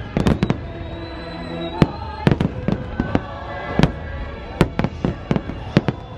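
Aerial fireworks bursting in a rapid, irregular string of sharp bangs, often several in quick succession, over show music with held notes.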